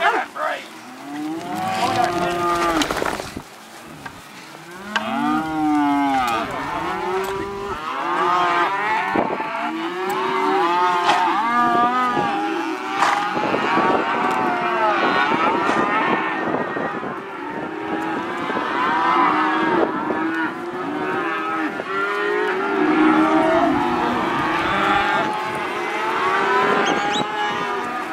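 A herd of calves mooing, many calls overlapping almost without a break, each call rising and falling in pitch.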